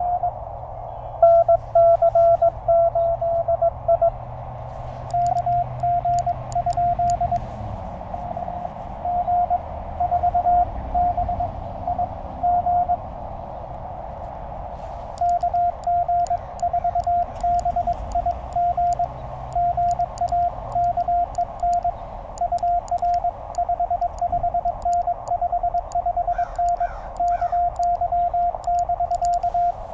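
Morse code from a Penntek TR-35 QRP transceiver: a keyed tone of dots and dashes over the radio's narrow band of hiss. Light clicks of the paddles run along much of the keying from about five seconds in.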